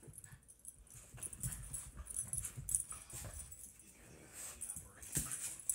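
Two dogs, a Schnoodle and a pit bull puppy, play-wrestling: irregular scuffling and breathy dog noises.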